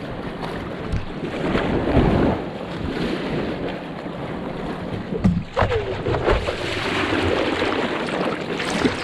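Shallow surf washing and sloshing around a surfboard as it is pushed through the water and then paddled, heard close up from a camera on the board's nose, with a few louder splashing surges.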